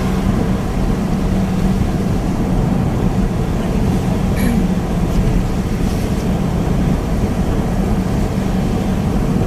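Engine of a moving vehicle running steadily, heard from on board: a constant low hum under a continuous rushing noise.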